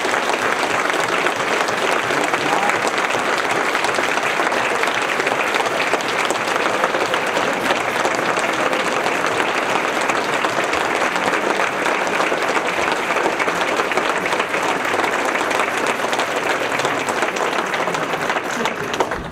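Large audience applauding in a standing ovation: steady, dense clapping that does not let up.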